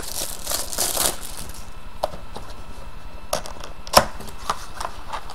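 Cardboard hobby box of trading cards being opened by hand: a crinkling, tearing rustle of its wrapping and flaps, then a few sharp clicks and snaps of cardboard, the loudest about four seconds in.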